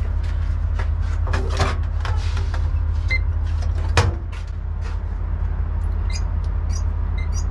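Semi truck's diesel engine idling steadily, with scattered clicks and knocks of a door and latch being worked and one sharp bang about four seconds in, like a cab door slamming shut.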